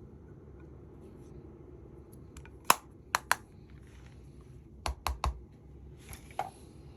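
Small hard plastic pieces of a makeup set being handled: sharp clicks and taps in two close groups, first one then two, then three in quick succession, followed by a brief soft rustle near the end.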